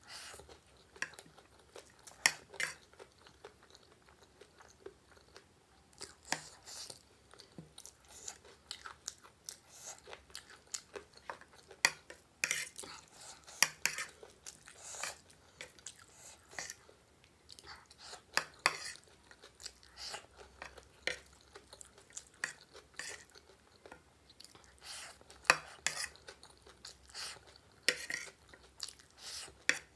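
Close-miked chewing of a mouthful of spicy chatpate, a puffed-rice snack, heard as an irregular run of sharp mouth clicks. A metal spoon scrapes and clinks on the plate between bites.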